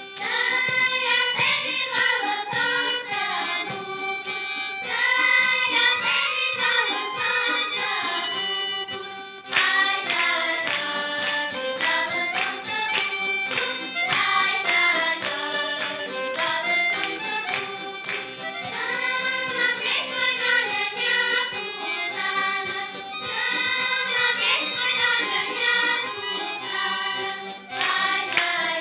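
Traditional folk song: a group of girls' voices singing with instrumental accompaniment, with a brief pause between phrases partway through.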